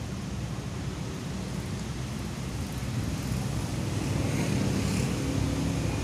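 Steady low rumble of road traffic, growing a little louder about halfway through.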